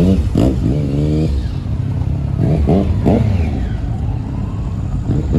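Motorcycle engines revving and accelerating over a steady low engine rumble, the pitch climbing in the first second and again about two and a half seconds in.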